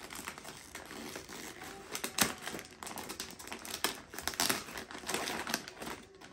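Wrapping paper crinkling and rustling as a wrapped present is picked open by hand, with irregular crackles and a sharper crackle about two seconds in.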